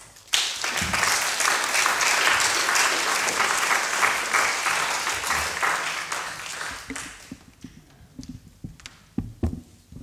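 Audience applauding, starting suddenly and fading out after about seven seconds. A few scattered knocks follow near the end.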